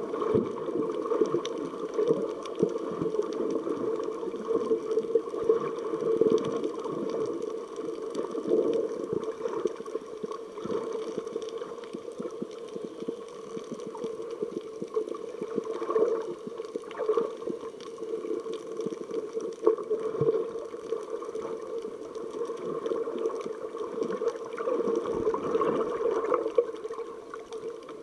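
Muffled underwater rushing and bubbling heard through a submerged ContourRoam2 action camera, a steady wash of water noise dotted with small crackles and knocks.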